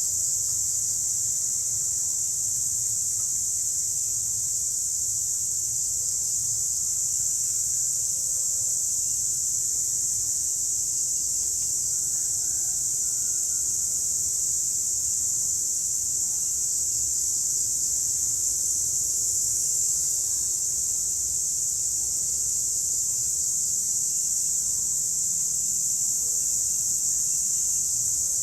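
A chorus of cicadas buzzing in one steady, unbroken high-pitched drone.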